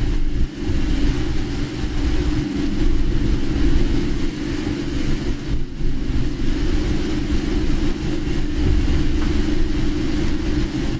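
Steady low rumble of a car's engine and tyre noise heard from inside the cabin while driving on rain-wet roads.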